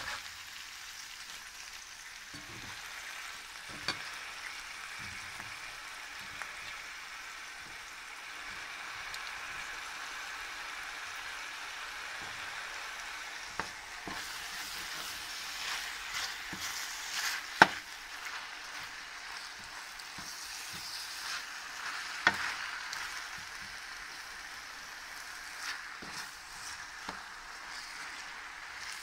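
Spinach, rice and spring onion sautéing in oil in a frying pan with a steady sizzle, turned over with a wooden spatula. The spatula knocks against the pan now and then, the sharpest knock a little past halfway.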